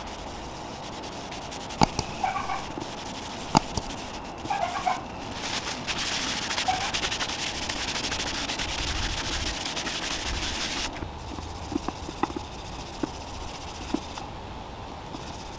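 A cloth rag rubbing and wiping wood stain on a wooden table board, a steady scrubbing hiss from about six to eleven seconds in, with lighter rubbing and small taps after it. A few short animal calls and sharp clicks come in the first five seconds.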